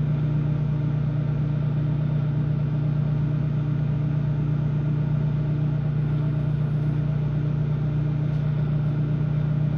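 Microwave oven running on a long heating cycle: a steady low hum, with a fainter tone pulsing about twice a second.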